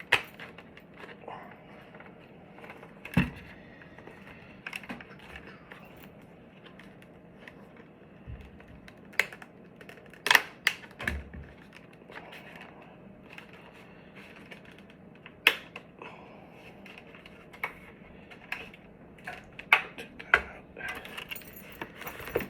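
Scattered sharp clicks and taps of helmet parts and padding being unclipped, handled and set down, a dozen or so irregular knocks with a few close together about ten seconds in.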